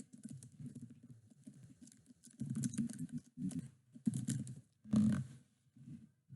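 Typing on a computer keyboard: quick runs of key clicks with short pauses between them, the loudest run about five seconds in.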